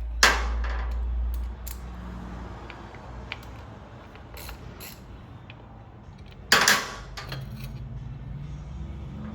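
Metal clinks and clanks of hand tools and motorcycle parts being handled, with two sharp, loud clanks: one right at the start and one about six and a half seconds in.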